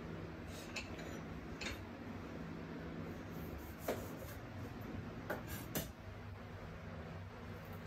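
A knife cutting a lime on a wooden cutting board: a few faint knocks and clicks, the clearest about four seconds in, over a steady low hum.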